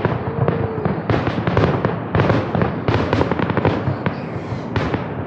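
Fireworks going off in rapid succession, many bangs and crackles overlapping with no pause.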